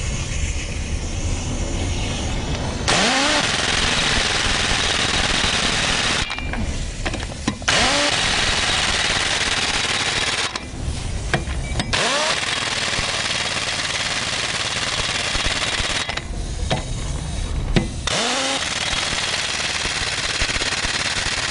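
Chicago Pneumatic CP797-6 one-inch-drive pneumatic impact wrench running in four bursts of three to four seconds each, with short pauses between. Each burst starts with a brief rising whine as the air motor spins up.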